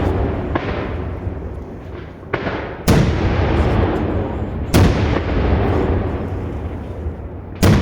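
Daytime fireworks shells bursting: four sharp bangs, the second a moment after the first, each trailing a long rumbling echo that runs on into the next.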